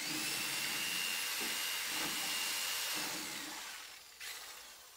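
Corded electric drill with a paddle mixer stirring glaze in a plastic bucket: the motor whines steadily for about three seconds, then winds down, with a short second run near the end.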